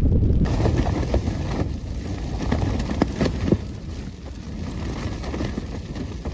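Strong wind gusting against a lightweight tent, a continuous low rumble of wind on the microphone with scattered short snaps of the fabric.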